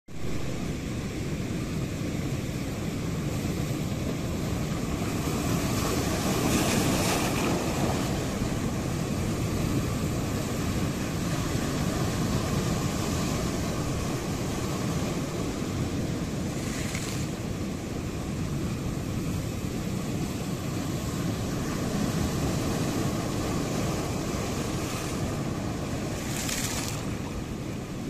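Sea waves hitting the shore: a continuous low rush of surf, with three brighter hissing washes of breaking water, about a quarter of the way in, a little past halfway, and near the end.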